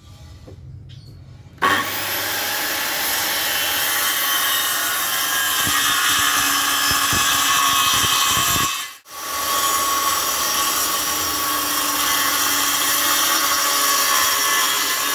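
Maktec handheld circular saw running and cutting through a wooden board, coming in loud about a second and a half in after a quieter opening. It drops out sharply for a moment about nine seconds in, then cuts steadily again.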